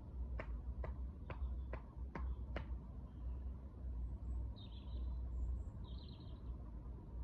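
Birds calling outdoors: a run of six sharp ticks in the first few seconds, then two short high chirps, over a steady low rumble.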